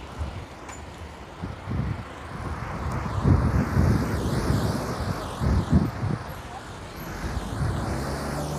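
Road traffic passing close by: a pickup truck drives past while wind buffets the microphone in low rumbles. Near the end a car's engine runs steadily nearby.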